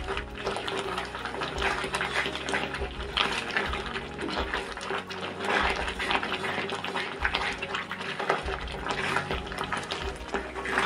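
Milk sizzling and bubbling as it cooks into roasted semolina and ghee in a pan, a steady crackling hiss, while a silicone spatula stirs and scrapes through the mixture.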